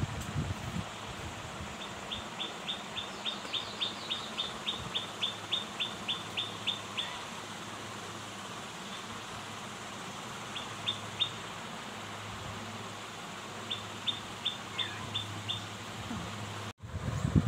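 A bird chirping in quick runs of short, high, falling chirps, about three a second: one long run early on, then two short runs later.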